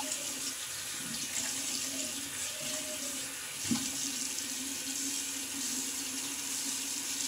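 Bathroom sink tap running steadily into the basin while an alum block is wetted under it, with a single light knock about halfway through.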